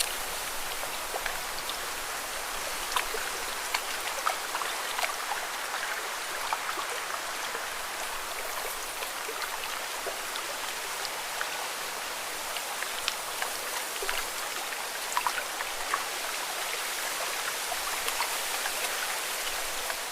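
Water falling in a steady hiss, dotted with many small scattered drips and splashes.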